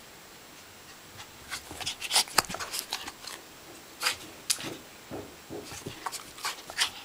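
West Highland white terrier making short, sharp excited sounds in several quick runs as it begs for a treat, after a quiet first second or so.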